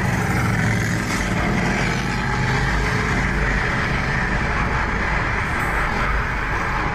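Motor vehicle engines running together in a steady, dense rumble.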